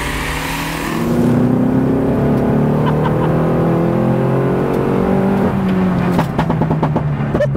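Modified Mini JCW Challenge 210's turbocharged four-cylinder engine pulling under acceleration, its note rising steadily, then dropping at a gear change about five and a half seconds in. A quick run of crackles follows near the end.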